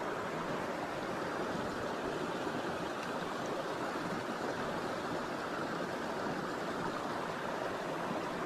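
Steady rush of water from a small creek waterfall, an even hiss with no break.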